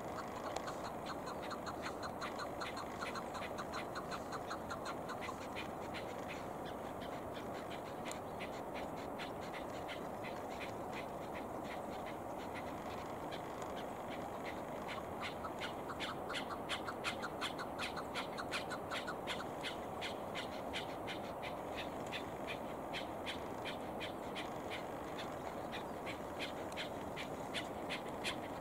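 Chukar partridge calling: long runs of quick, evenly spaced clucks, a weaker run at the start and a louder one from about halfway through to the end.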